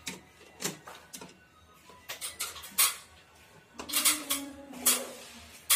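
Metal screwdriver clicking and scraping on the terminal screws of a slim DIN-rail timer as wires are tightened into it: a string of sharp separate clicks and scrapes, the loudest about three seconds in and near the end.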